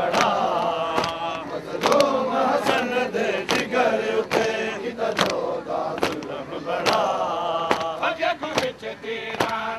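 A crowd of men chanting a Shia mourning lament (nauha) together, with sharp rhythmic slaps about twice a second from chest-beating (matam).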